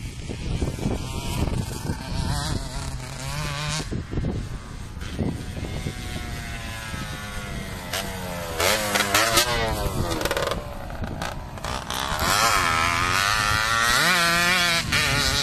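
Yamaha DT two-stroke trail bike engine revving up and down as it is ridden along a dirt track, its pitch rising and falling with the throttle. It is loudest as it passes close about nine seconds in and again as it pulls away near the end.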